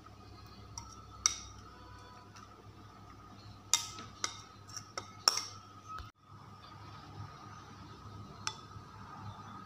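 A spoon clinking and scraping against bowls while spices are scooped onto chicken pieces: scattered sharp clinks, several in quick succession about four to five seconds in.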